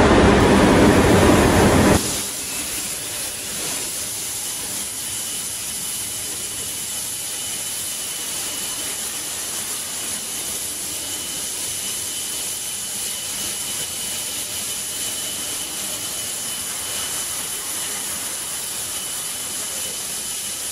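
Microstep CombiCut CNC cutting machine's torch cutting steel with a steady hiss. A louder rush of noise in the first two seconds cuts off suddenly, and a faint high whine runs through the hiss from about five seconds in.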